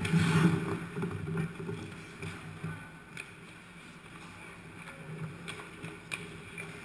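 Ice hockey skates scraping and carving on the ice close by, loudest in the first second, then the steady hum of an indoor rink with a few sharp clacks of sticks and puck farther off.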